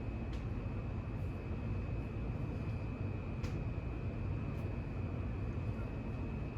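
Mainstays 42-inch ceiling fan running with a steady whir and a thin, steady high whine, plus a few faint ticks.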